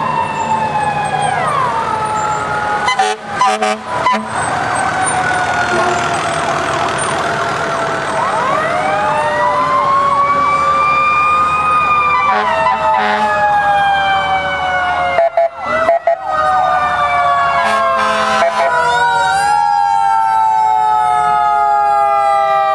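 Sirens of passing fire trucks and emergency vehicles wailing together, several tones slowly rising and falling over one another. The sound briefly cuts out twice.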